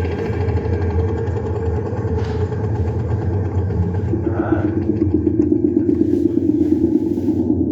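An engine running steadily, its note shifting about four seconds in.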